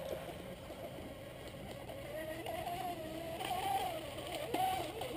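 Small electric RC boat running on the water, its Leo 2845 3540 kV brushless motor driving a two-blade aluminium prop on a flexible wire shaft. It gives a faint whine that rises and falls in pitch.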